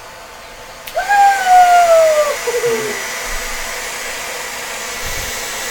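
Hair dryer switched up to high with a click about a second in, then blowing steadily. Just after the click a long call slides slowly down in pitch, followed by a shorter one.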